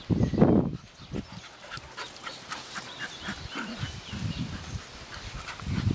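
A dog panting and breathing hard during play, loudest in the first second.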